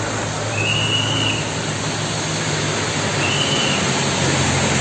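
Heavy rain pouring down onto a flooded road, with a vehicle engine running underneath it. Two short, high, thin tones sound over the rain, about a second in and again past three seconds.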